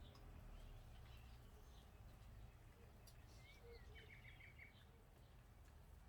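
Faint bird chirps over a low steady rumble: a short gliding note about three seconds in, then a quick run of about five chirps.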